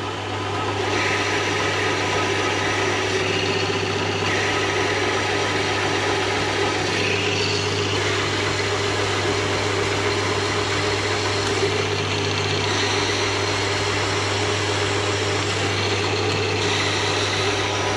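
Hare and Forbes AL51G 9x20 metal lathe running steadily, a constant motor hum with a mechanical whir. The higher part of the sound shifts a few times, around four, eight and seventeen seconds in.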